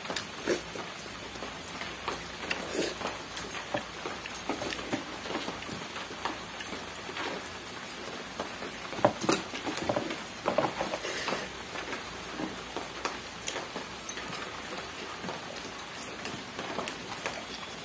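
Close eating sounds, wet chewing and lip smacks with fingers working rice on a steel plate, over a steady hiss of rain. A cluster of louder smacks comes about halfway through.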